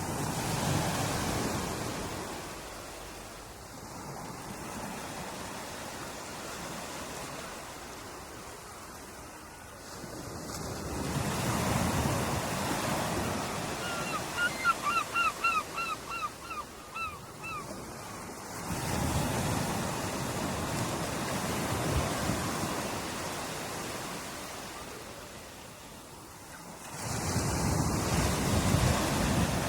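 Ocean waves breaking on a shore, each surge swelling and washing back about every eight seconds. Partway through, a bird calls a quick run of about a dozen short notes lasting some three seconds.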